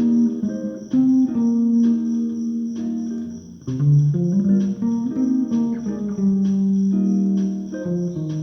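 Bass guitar played melodically in its upper register, plucked notes and chords ringing and overlapping, with a sharp attack on the notes about once a second.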